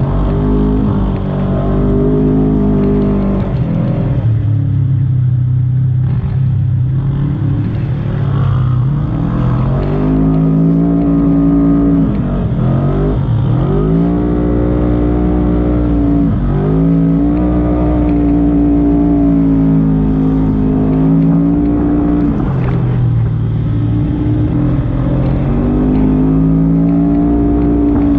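Side-by-side UTV engine running hard while driving through sand, its pitch holding and then dropping and climbing again several times as the throttle comes off and back on.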